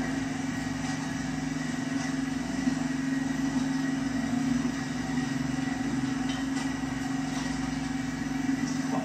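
An engine running steadily, a low even hum with no change in speed, heard through a television's speaker.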